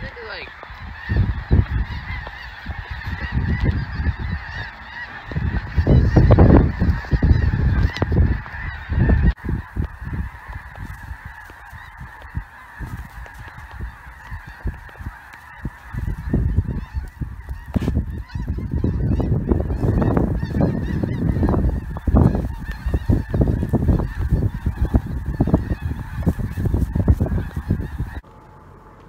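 A dense, continuous chorus of snow geese honking, many birds calling at once, cut off suddenly near the end. Loud, irregular low thumps and rumbling run underneath.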